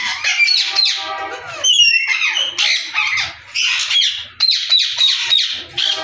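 Ringneck parakeets squawking and screeching, harsh calls repeated in quick succession and overlapping one another.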